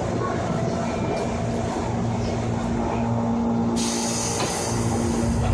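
205 series electric train running, a steady rumble with a steady hum under it. A hiss starts about two-thirds of the way in and holds to the end.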